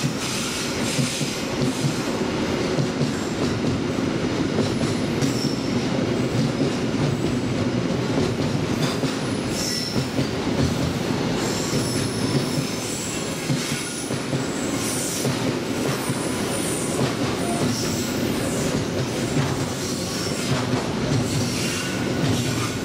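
Container freight train's loaded flatcars rolling steadily past on the rails, with brief high-pitched wheel squeals now and then.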